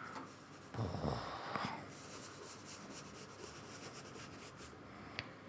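Paintbrush strokes on paper, a quiet scratchy rubbing as gouache is brushed on, with a brief louder stroke about a second in and a small click near the end.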